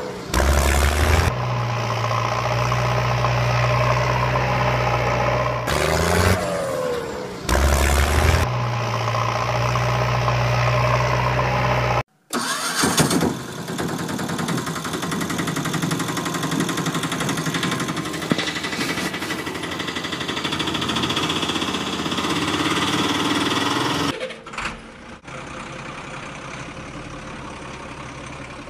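Engine sound effects laid over toy vehicles: an engine cranking and starting more than once, then running steadily. About 12 s in the sound cuts briefly and switches to a different running engine, and about 24 s in it switches again to a quieter, duller engine.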